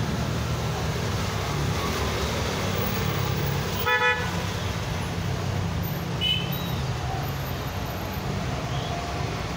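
Steady low rumble of road traffic passing, with one short car horn toot about four seconds in.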